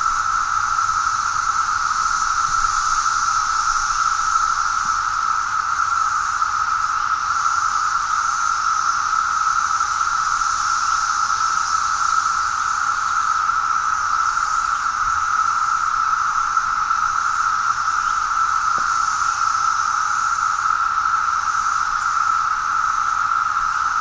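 A dense chorus of 17-year periodical cicadas (Magicicada) singing: a very loud, steady, unbroken whirring drone with a fainter high hiss above it, a sound the recordist likens to a UFO.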